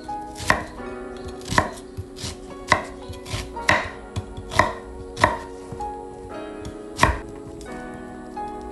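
Chef's knife chopping an onion on a wooden butcher-block cutting board: about ten sharp chops at an uneven pace, stopping about seven seconds in.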